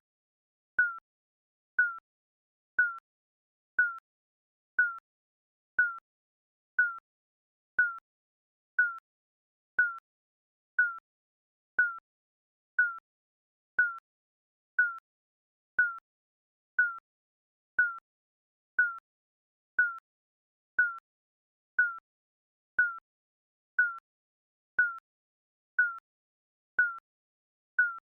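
Digital countdown timer's electronic beep, one short single-pitched blip exactly once a second, marking each second as the clock counts down.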